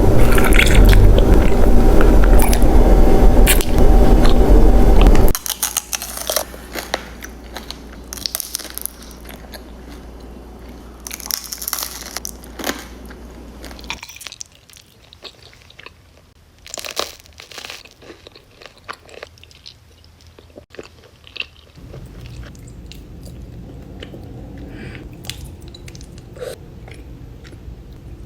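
Raw honeycomb being bitten and chewed close to the microphone: crisp crunches and sticky, wet crackles of the wax comb. The first five seconds are much louder and denser, then the chewing continues as quieter, separate clicks and crackles.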